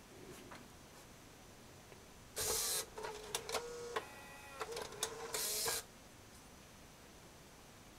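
Disc changer in a Bose Lifestyle 20 music center switching from disc 1 to disc 2: a motor whirs with a steady hum and a run of clicks, starting about two and a half seconds in and stopping a little before six seconds.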